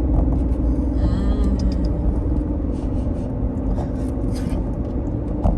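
Car idling, heard from inside the cabin as a steady low rumble, with a few light clicks over it.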